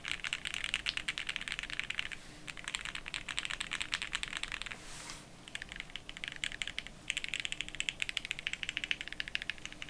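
Fast typing on a gasket-mounted mechanical keyboard with factory-lubed Gateron Pro Yellow linear switches, a polycarbonate plate and PBT keycaps: quick runs of keystroke clacks, with brief pauses about two and five seconds in.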